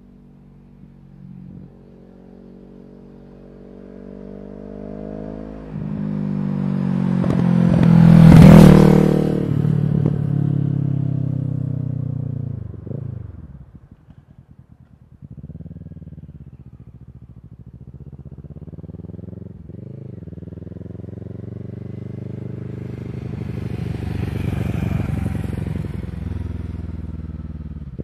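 2012 Kawasaki ER-6n's parallel-twin engine through a full Akrapovic exhaust without the dB-killer, very loud as the bike accelerates in and passes. The pitch climbs to the loudest point about eight seconds in, then drops steeply and fades to a brief lull near fourteen seconds. The engine then comes back, rising and falling in pitch several times and growing louder again around twenty-five seconds.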